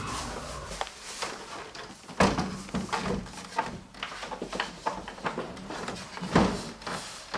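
Clunks, knocks and clicks of a Sony flat-screen TV being handled and hooked onto a metal wall-mount bracket, with a loud clunk about two seconds in and another near the end.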